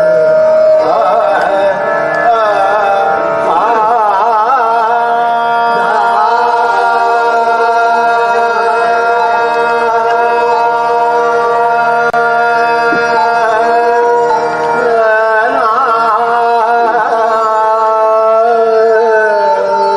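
Hindustani classical vocal music of the Gwalior gharana: male voices singing with rapid wavering ornamented runs over the steady sustained tones of a harmonium.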